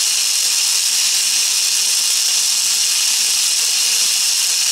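Vintage Micronauts Microtron toy's small electric motor and plastic gear train running, turning the arms and drill bit, with a steady, noisy high whirr. The repaired gears, glued back after cracking loose on their axles, are all working, and the noise is normal for this toy rather than a fault.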